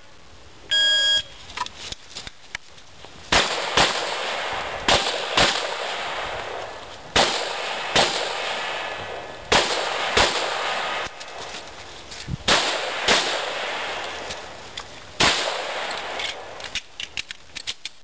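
An electronic shot-timer beep about a second in gives the start signal. From about three seconds on, a handgun fires in quick pairs roughly half a second apart, each shot trailing off in echo, with several pairs spread through the rest.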